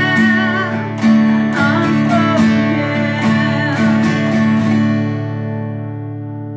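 Taylor cutaway acoustic guitar strummed in a slow, even rhythm while a woman sings a wavering held line over the first couple of seconds. A final chord about five seconds in rings out and fades away.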